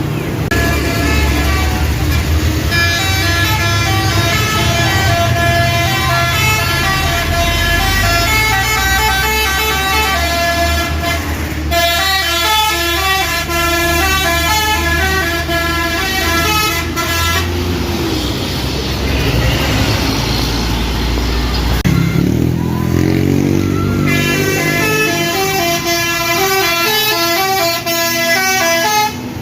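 Telolet basuri musical horns on tour buses playing quick stepped melodies, in three long stretches with a pause of a few seconds about two-thirds of the way in, over the low rumble of the bus engines.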